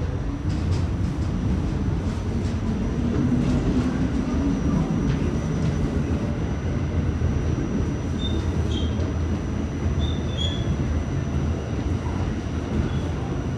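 R46 subway car heard from inside, pulling out of a station and running on: a steady low rumble of wheels on rail, a low motor whine in the first few seconds, and a few brief faint squeaks partway through.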